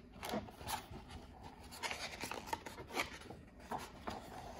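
A large picture-book page being turned by hand: quiet paper rustling and brushing in a series of short scrapes.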